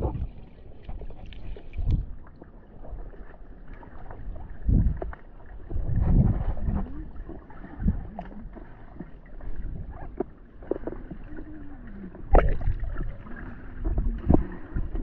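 Muffled water sloshing and splashing around swimmers paddling in life jackets, with irregular low thumps.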